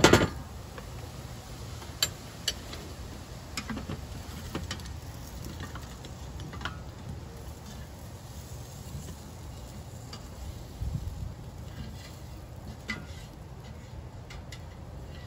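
Sparse soft taps and clinks as roasted butternut squash cubes tumble out of a tipped air fryer basket onto a ceramic plate, the basket now and then knocking the plate's rim. A louder clatter right at the start, over a steady low rumble.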